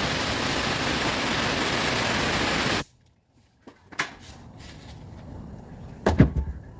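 A steady, loud hiss, even across pitches with no motor whine in it, cuts off abruptly about three seconds in. A click and then a couple of knocks follow near the end.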